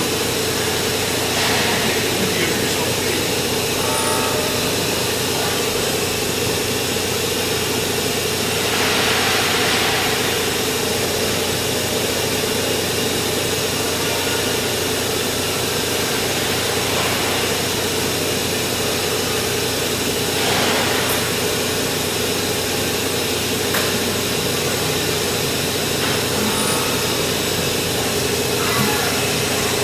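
Hurco VMX30U five-axis CNC machining centre running a machining cycle: a steady mechanical hum with a held mid-pitched tone, and a few louder hissing swells, around nine and twenty seconds in.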